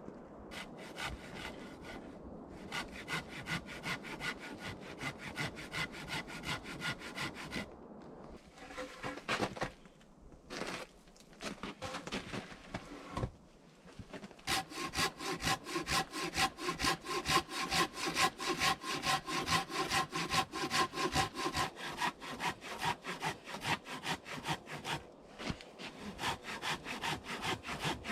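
Hand saw cutting through a log in steady back-and-forth strokes, about two to three a second, with a few short pauses between runs of sawing.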